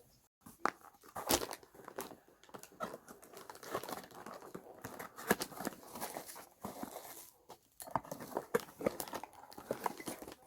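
Paper wrapping being crinkled and torn by hand as an item is unwrapped, in irregular crackling rustles with short pauses.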